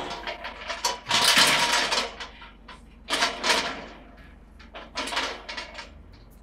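Metal gate rattled at its latch in several bursts of rattling and clicking, the loudest about a second in and two more at about three and five seconds.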